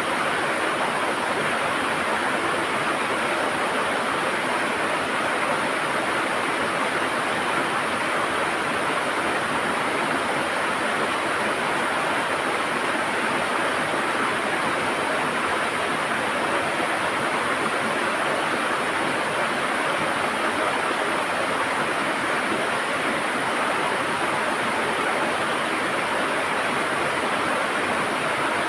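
River water gurgling and rushing steadily over rocks, an even unbroken rush.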